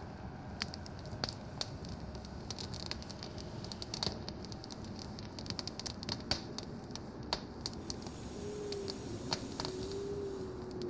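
Wood fire crackling, with irregular sharp pops over a low steady rumble. A faint wavering tone comes in near the end.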